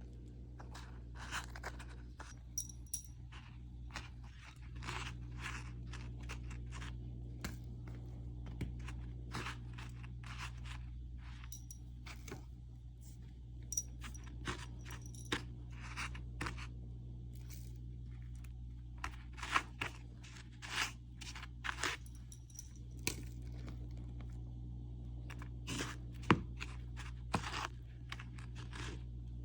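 Buttered cinnamon bites being dipped and rolled in sugar: irregular short scrapes and crunchy clicks, many of them, over a steady low hum.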